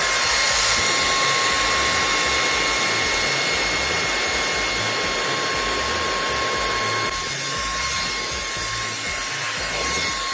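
Greenote GSC60 cordless stick vacuum running steadily at full speed, a constant high motor whine over airflow hiss, as its crevice tool is drawn over velvet sofa upholstery.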